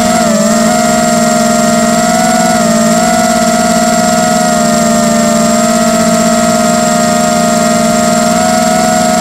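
Tarot 250 racing quadcopter's brushless motors and propellers spinning at a steady low throttle while it sits on the ground before takeoff: an even, slightly wavering whine, with a thin high tone above it.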